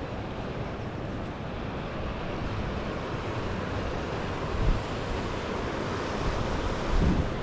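Steady rush of a waterfall, with wind buffeting the microphone in short low gusts about four and a half and seven seconds in.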